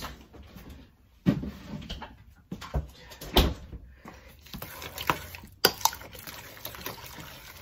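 Metal spoon stirring a thick mashed-potato filling in a glass mixing bowl, knocking and scraping against the bowl. There are several sharp clinks, the loudest about three and a half seconds in, with softer scraping between them.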